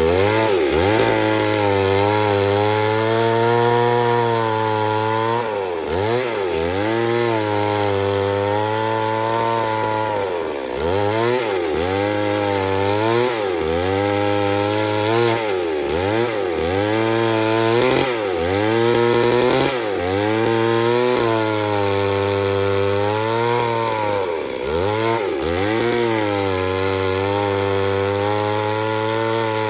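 Chainsaw running at full throttle while cutting into wood, its engine pitch sagging under load and recovering every second or two as the chain bites and frees.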